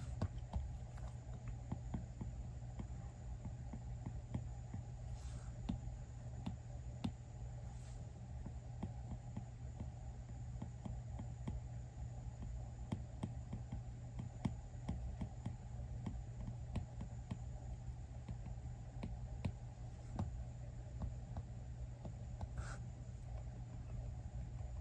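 Apple Pencil's plastic tip tapping and stroking on the iPad Pro's glass screen while sketching: many light, irregular ticks over a steady low hum.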